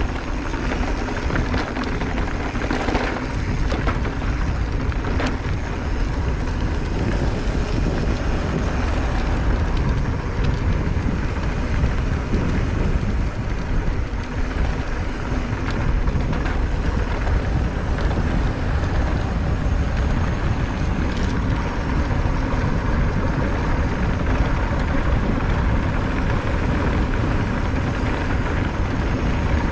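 Wind buffeting the action-camera microphone and an electric mountain bike's knobby tyres rolling over a dirt fire road, a steady low rumble with a few clicks and knocks from the bike over bumps.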